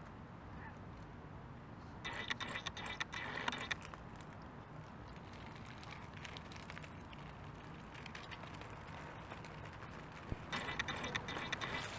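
1/10-scale RC rock crawler with a Fusion Pro brushless motor: the motor and drivetrain whine and clatter in two short bursts, about two seconds in and again near the end, as the crawler inches over rocks. Between the bursts it is near idle.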